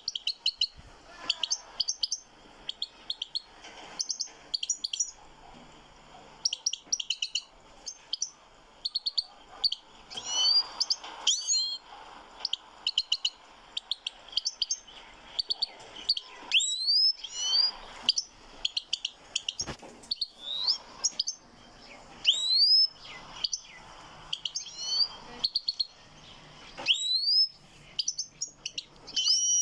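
European goldfinch singing: bursts of quick, high twittering notes mixed with rising whistled sweeps, broken by short pauses.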